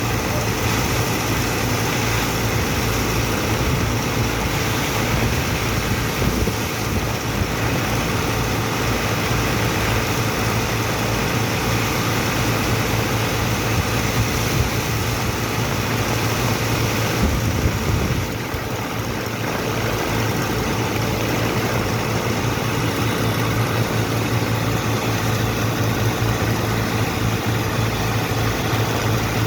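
Heavy machinery engine running steadily with a deep, constant hum, dipping briefly about eighteen seconds in before resuming.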